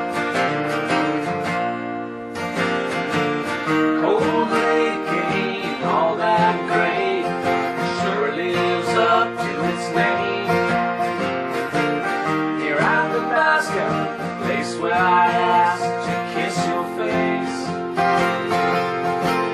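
Country song on strummed acoustic guitar. About four seconds in, a melody line that slides and bends in pitch comes in over the strumming.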